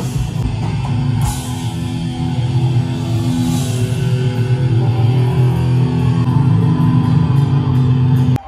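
Rock band playing live, electric guitar chords ringing over the bass; the music cuts off abruptly near the end.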